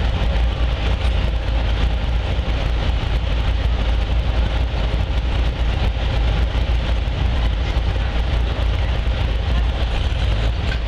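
Steady outdoor fairground background noise: a constant low rumble with an even hiss over it, and no distinct events.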